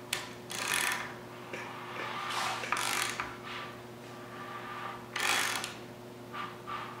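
Ratchet wrench on the crankshaft nose clicking in several short bursts as the engine is turned over by hand, bringing the piston up against a piston stop to check top dead centre. A steady low hum runs underneath.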